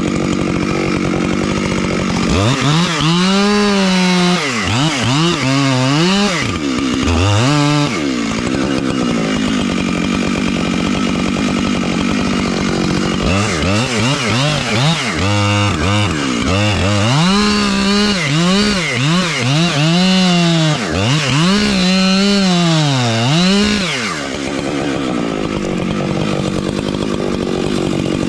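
Husqvarna 592XP two-stroke chainsaw running at full throttle and cutting into oak with a chain whose teeth have been broken off by a nail buried in the trunk. In two long stretches the engine pitch repeatedly dips and recovers as the bar loads. In between and near the end it runs steadily.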